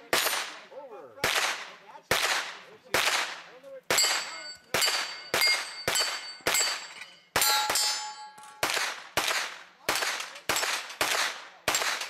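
Pistol-caliber carbine firing a steady string of shots, a bit under two a second, at steel targets. Many hits are followed by the steel plates ringing, and one target about seven seconds in rings longer with several tones.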